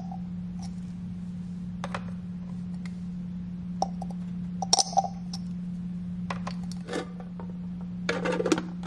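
Scattered light clicks and clinks of eggshells against the hard plastic measuring cup of an electric egg cooker as the eggs are pricked on its pin, with a quick cluster of plastic rattles from the cooker's lid near the end, over a steady low hum.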